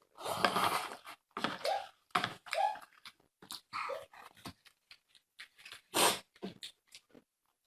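Close-miked wet chewing, lip-smacking and slurping of fatty pork belly, a string of short irregular mouth sounds.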